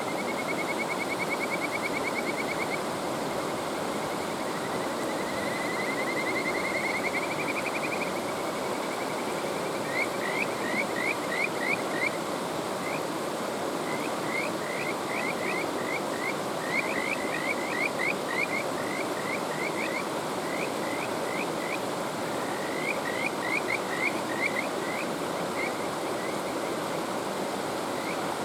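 Kajika frogs (Buergeria buergeri) calling over a rushing mountain stream. A fast trill near the start is followed by a trill that rises in pitch a few seconds in, then by repeated runs of short, rising, whistle-like notes.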